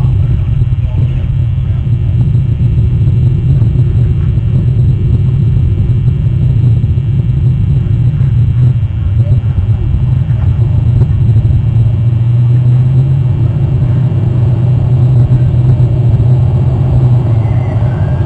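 A steady low rumble on an outdoor nest-camera microphone, with a faint short high chirp near the end.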